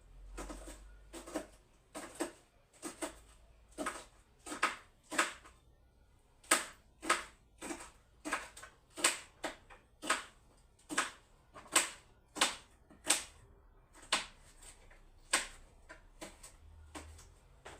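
A steady series of sharp taps or knocks, roughly one and a half a second, some louder than others, in a small room.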